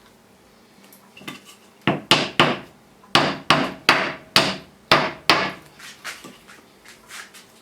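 Hammering a carved birch wooden nail through a salmon fillet into a wooden plank: about nine sharp blows in quick succession, followed by a few lighter taps near the end.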